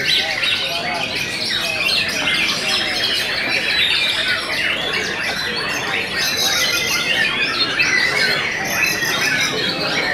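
White-rumped shama singing: a long, unbroken run of varied whistles, chirps and chattering phrases. Other birds sing over it at the same time, making a dense chorus.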